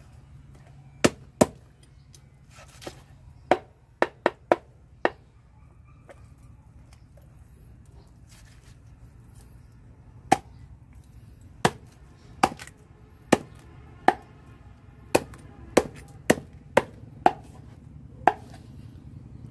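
A large kitchen knife chopping a raw chicken through its bones on a thick wooden chopping board: about twenty sharp chops at an uneven pace, with a pause of about five seconds in the middle.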